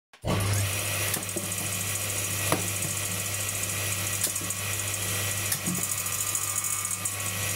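Circular saw running at full speed, a steady motor hum with a high hiss, broken a few times by sharp knocks as red onion pieces hit the blade and are flung against the enclosure.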